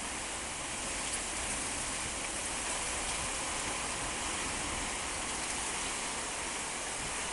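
Heavy rain pouring down steadily in a fierce windstorm, an even rushing hiss without a break.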